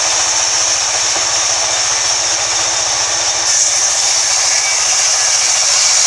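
Sawmill band saw running steadily and loud, with a strong high hiss, as a plank is fed through the blade. The hiss turns sharper about three and a half seconds in.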